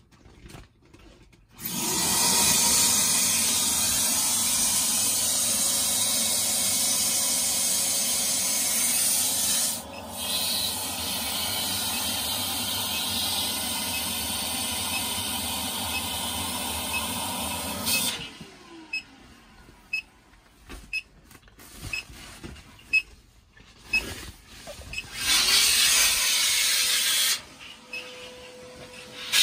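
A steady rushing hiss of air starts about two seconds in, runs for some sixteen seconds with a brief dip partway, then stops suddenly. Scattered soft clicks and plastic rustles follow, with a second short burst of hiss near the end.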